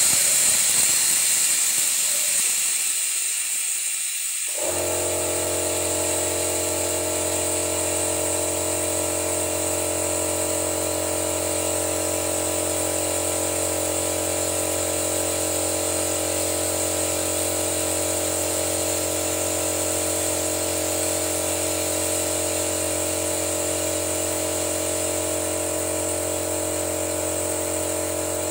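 Steady hiss of compressed air driving a venturi vacuum canister that sucks dirty flushing fluid out of a car engine. About five seconds in, a steady machine hum joins the hiss.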